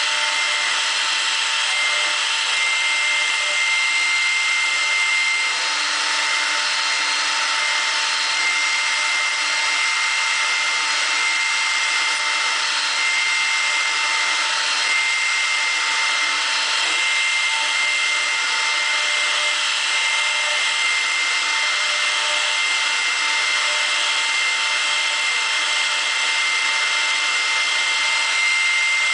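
CNC router's 1.7 kW spindle running at a steady high-pitched whine as a 10 mm cutter mills a PVC block, over a continuous cutting noise from the plastic.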